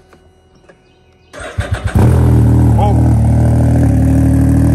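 Can-Am Ryker engine starting through a newly fitted Brandon King aftermarket exhaust. A brief stuttering crank a little over a second in catches, and the engine settles into a loud, steady idle.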